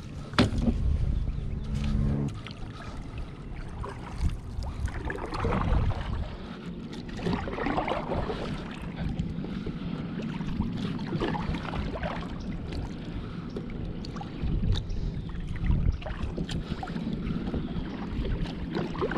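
Kayak being paddled on calm salt water: swishes of water every couple of seconds and water lapping against the hull. A low steady hum sounds for about the first two seconds.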